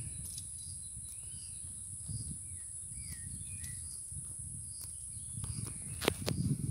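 Outdoor ambience of insects keeping up a steady high trill, with a few short bird chirps in the first half. A sharp click comes about six seconds in.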